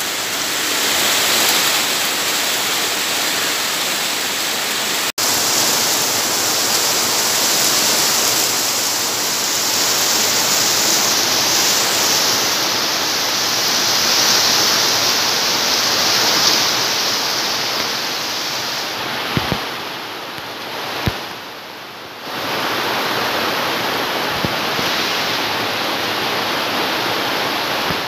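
Heavy typhoon rain and strong wind: a loud, dense, steady rush of noise. It drops out for an instant about five seconds in, and eases briefly about twenty seconds in with two small knocks.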